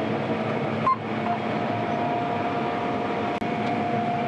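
John Deere combine harvester running steadily, a constant machine drone with a steady whine, with a couple of brief clicks.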